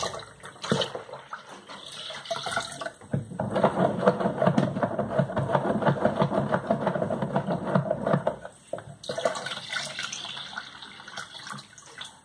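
Water pouring into a plastic pitcher part-filled with horchata and splashing into the liquid. The pour is loudest through the middle and thins to a lighter hiss near the end.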